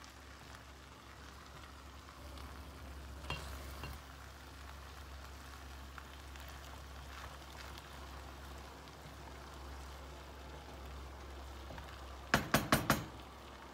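Wooden spoon stirring rice pilaf in a nonstick pan on low heat: a soft, steady scraping and rustling of the grains over a low hum. About twelve seconds in, a quick run of sharp clacks as the spoon knocks against the pan.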